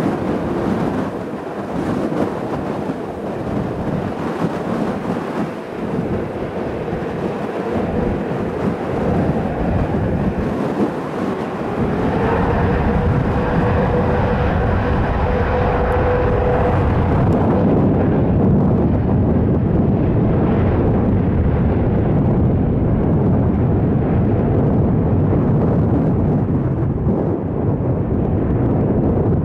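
Jet airliner's engines: a loud rushing noise, with a steady whine about twelve seconds in, then a deep, steady rumble that takes over as the higher sound fades.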